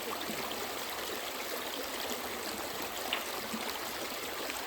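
Creek water running steadily over rocks, an even rush with a little trickling.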